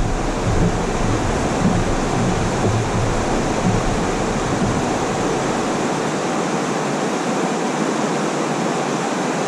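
Rushing water of a mountain stream, a steady, even roar.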